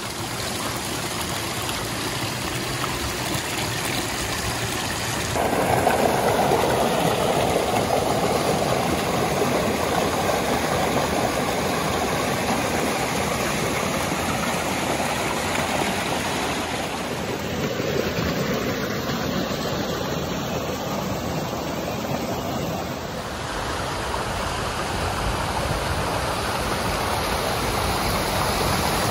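Pistyll Rhaeadr waterfall: a steady rush of falling water, stepping up louder about five seconds in.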